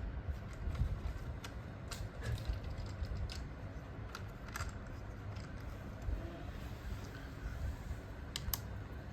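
Battery-powered toy train running on its plastic track: a steady low rumble from the motor and wheels with irregular light clicks and clatters.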